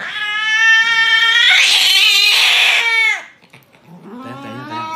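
Domestic cat yowling in distress while restrained for an injection: one long, loud drawn-out cry that turns harsh and rasping in the middle and falls away about three seconds in, then another yowl starts near the end.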